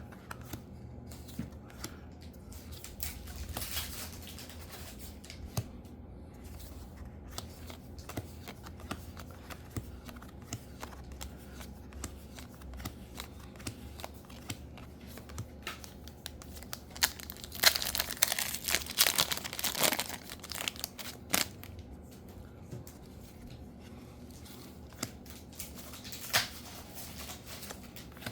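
Foil trading-card booster packs being torn open and crinkled by hand, with bursts of sharp tearing and rustling. The loudest run of tearing comes past the middle, with another short tear near the end.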